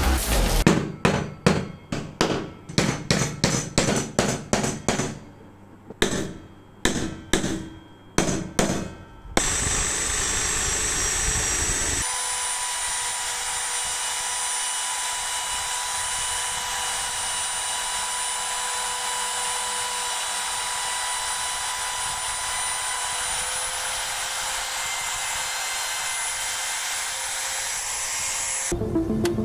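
A quick run of about twenty sharp knocks. Then, from about ten seconds in, a compact trim router runs with a steady high whine while cutting into a clamped wooden block, and it stops shortly before the end.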